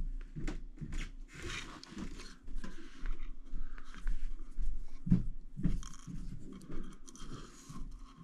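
Irregular small scrapes, rubs and clicks of hand-held tools working a carburetor jet and a fine drill bit at the bench, with a faint steady hum underneath.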